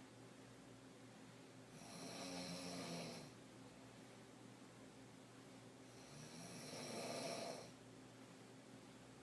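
A woman snoring while sleeping deeply on her back: two snores, each about a second and a half long, about four seconds apart, with quieter breathing between them.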